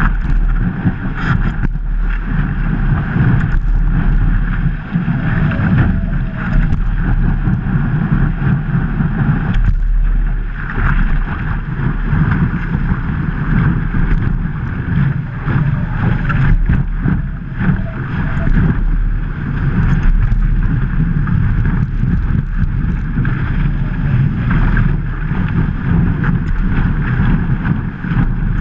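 Water rushing and splashing along a stand-up paddleboard as it rides a breaking wave, heard at a camera on the board's nose, with wind buffeting the microphone. A loud, steady rush broken by frequent small splashes and knocks.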